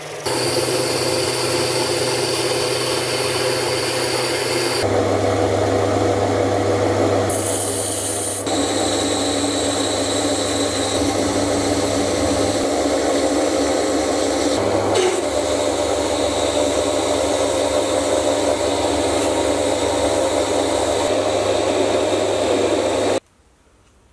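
Metal lathe turning a cold-drawn steel shank with a carbide insert tool: the lathe's motor and gearing run steadily under the hiss of the cut. The sound changes abruptly a few times and stops suddenly about a second before the end.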